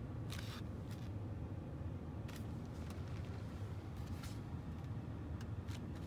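A Ford Expedition idling, heard from inside the cabin as a steady low hum, with a few light clicks and rustles of handling scattered through it.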